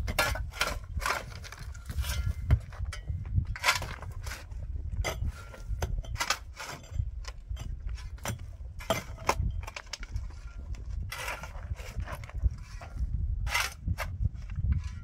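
Pickaxe and shovel digging into dry, stony earth: irregular strikes and scrapes of metal blades in soil and rock, roughly one a second.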